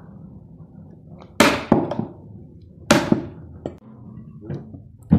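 Several sharp knocks and thunks of scrap wood and a hoe being handled around a sheet-metal wood stove as it is fed. The two loudest come about one and a half and three seconds in, and another comes near the end.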